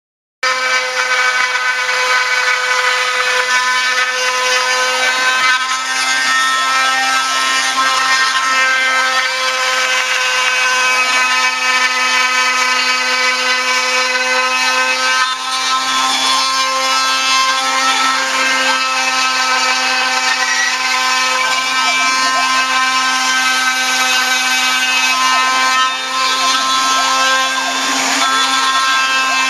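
Spindle of a home-built CNC router running with a steady high whine while a small end mill cuts a profile in a wood sheet, the rasp of the cut under it. Fainter tones glide up and down as the machine's axes move, and the sound starts about half a second in.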